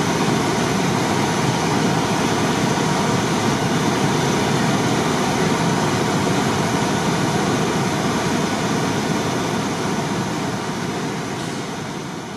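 Fire apparatus engines and pumps running steadily, feeding aerial water streams, heard as an even, unbroken roar that fades out near the end.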